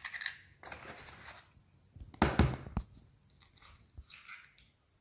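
Eggs being cracked into a stainless steel mixing bowl of flour: crackling and crunching of eggshells being broken and pulled apart, with a cluster of sharp knocks a little past two seconds in.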